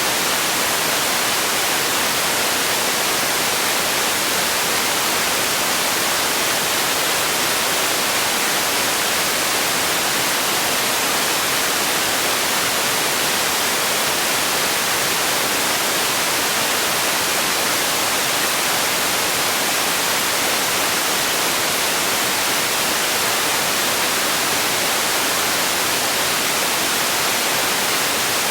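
Continuous white-noise hiss, steady and unchanging, brightest in the high range: a synthetic relaxation and sleep noise.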